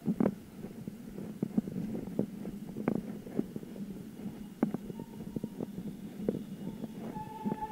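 Rattling and irregular knocks from a bicycle riding over an uneven street surface, picked up by a camera mounted on the bike, over a low rumble. Near the end a steady high tone with overtones starts up.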